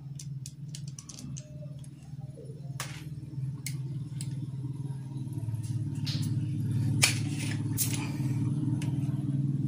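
A steady low engine drone that grows louder about halfway through, with a few sharp clicks and taps of small parts being handled over it.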